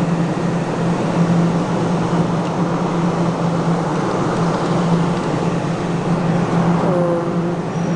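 Steady low mechanical hum under a constant rush of background noise, with a short gliding tone about seven seconds in.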